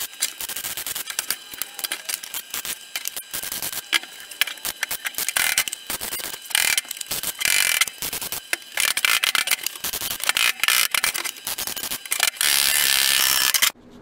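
Electric welding arc crackling as a steel repair patch is butt-welded into a car's rusted boot floor. It runs in a string of short bursts, with one longer steady run near the end that cuts off sharply.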